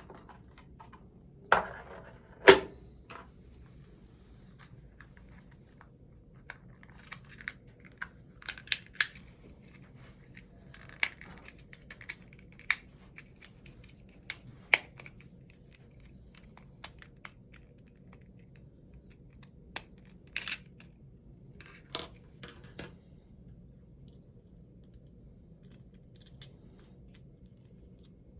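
Quartz clock parts being handled and prised apart by hand: scattered clicks, snaps and light knocks of plastic and small parts. Two louder knocks come in the first few seconds, and the clicks thin out and stop about three quarters of the way through.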